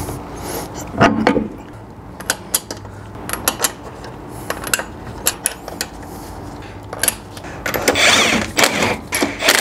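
Car wheel going back on the hub: scattered metallic clicks and clinks as the lug nuts are threaded onto the studs, then near the end a quick run of rapid clicking as a tool spins a lug nut down.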